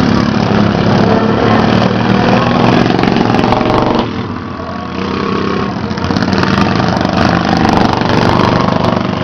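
Small engines of stock-class racing lawn mowers running, one of them louder for a while and then easing away about four seconds in before the sound builds again.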